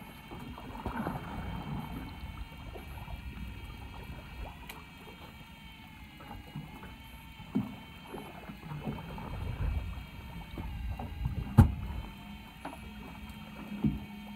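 Onboard sound of a fishing boat at sea: a steady hum and low rumble, with a few sharp knocks against the boat, the loudest about eleven and a half seconds in.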